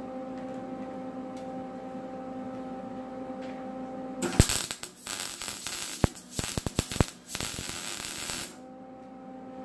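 Gas-shielded MIG welder tack-welding thin sheet metal on a Chevy S10 fender: a steady electrical hum at first, then about four seconds of arc crackle starting some four seconds in, broken into short bursts as separate tacks are laid, and stopping about eight and a half seconds in. With shielding gas the sheet metal welds without burning through.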